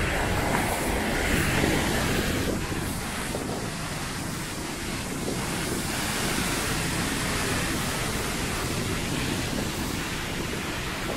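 Wind blowing across the microphone, a steady rushing noise that rises and falls a little.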